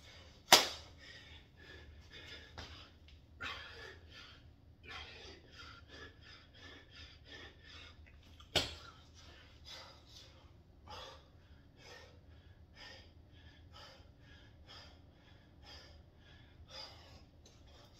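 A man breathing hard from bodyweight exercise: a run of short, uneven breaths. Two sharp knocks, one about half a second in and one near the middle, are the loudest sounds.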